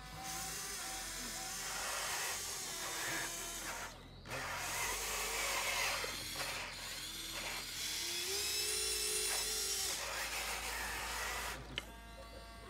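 Small electric motors of radio-controlled construction machines whining and shifting in pitch as they work, over a steady rasping scrape, with a brief break about four seconds in.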